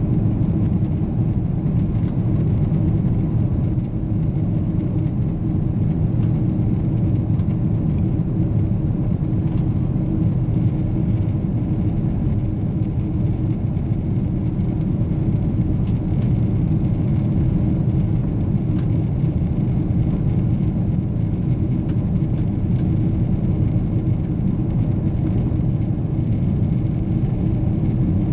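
Steady low rumble of a Boeing 777's engines and rushing air heard inside the cabin, with a constant hum over it.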